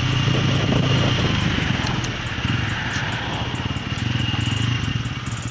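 Bajaj Pulsar N160's single-cylinder engine running as the motorcycle is ridden, heard from the rider's seat, with a steady rapid low pulsing. It gets a little quieter from about two seconds in as the bike slows.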